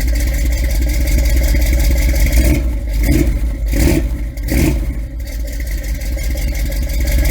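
Car engine running with a steady low rumble, revved up in a few short surges about three to five seconds in.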